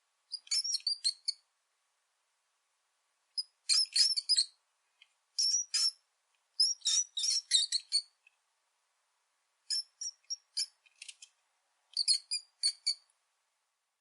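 Rat squeaking: short, high-pitched squeaks in quick clusters, about six bursts with brief silences between them.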